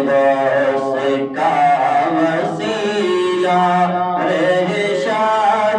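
Male voice singing an Urdu naat unaccompanied, with a chanted vocal backing and no instruments.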